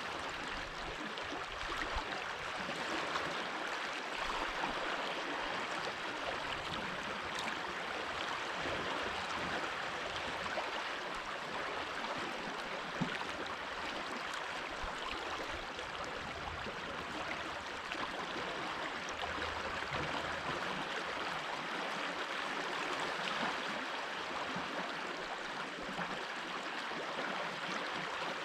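Mountain stream flowing over stones: a steady, even rush of water with small splashes and gurgles.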